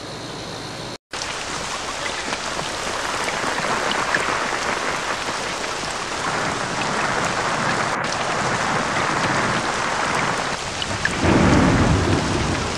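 Steady hiss of rain falling on a wet road, with a louder low rumble near the end.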